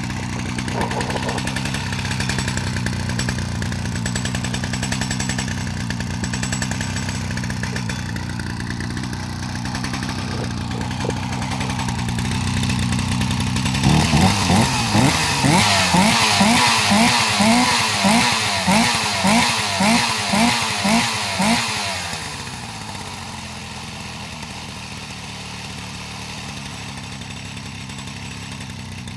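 Solo 611 Twin chainsaw engine idling steadily, then revved about halfway through in a run of quick throttle blips, about one and a half a second for some eight seconds. It then settles back to a quieter idle.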